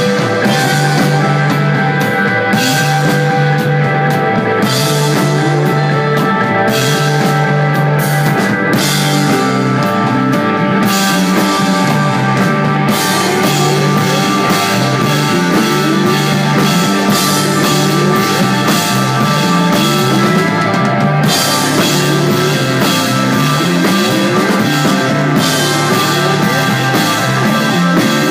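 Rock band playing live and loud, with a drum kit, a repeating bass line and held guitar tones.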